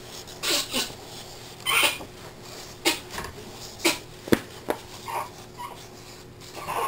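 Pages of a paper colouring book being turned by hand, a series of short rustles and flaps about once a second, with a few short whines in between near the end.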